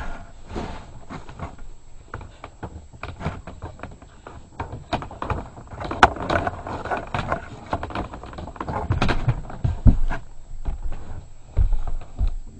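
A string of irregular knocks, clunks and scrapes, as of tools and hardware being handled during the work, with the heaviest thumps a little before the end.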